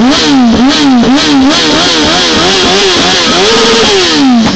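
Yamaha R1 inline-four sportbike engine revved in quick throttle blips, two or three a second, its pitch jumping up and dropping back each time. Near the end it is held at higher revs for about a second, then falls away.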